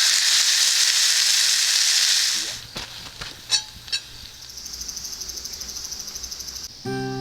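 Steak sizzling loudly in an iron frying pan, stopping suddenly after about two and a half seconds. A couple of sharp clicks follow, then a fast, high pulsing chirp, and music begins near the end.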